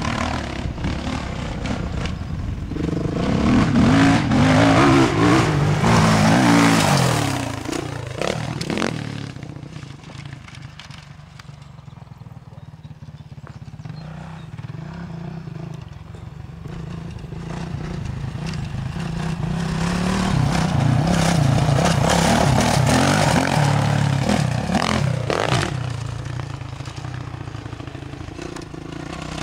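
Kawasaki KX450F motocross bike's four-stroke single-cylinder engine revving hard as it rides the dirt track, the pitch climbing and dropping with the throttle. It is loud twice as the bike comes close and fades to a faint distant drone in between.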